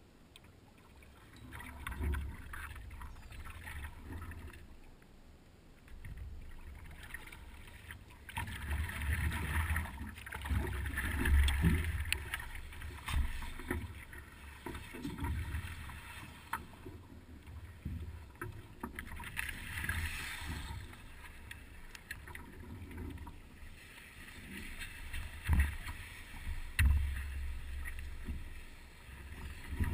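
Water swishing and sloshing around a stand-up paddleboard under way, with irregular low thumps and knocks on the board.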